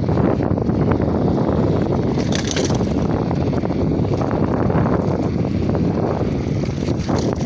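Wind rushing over the microphone of a camera on a moving road bike, a loud steady low rumble, with a brief hiss about two and a half seconds in.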